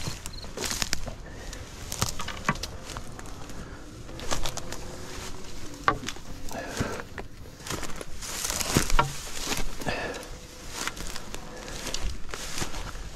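Footsteps of a person hiking over rocky ground: irregular crunches, scrapes and clicks of boots on stones and gravel.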